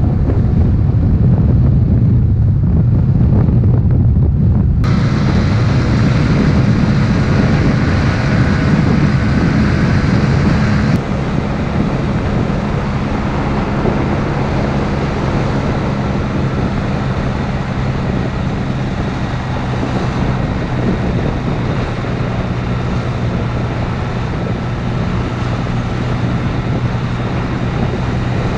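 Motor scooter engine running at a steady cruise, with wind rushing over the microphone. The sound shifts abruptly twice, about five and eleven seconds in.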